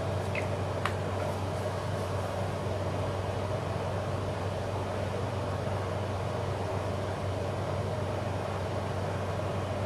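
A steady machine hum, low with a higher drone above it, with two faint clicks in the first second.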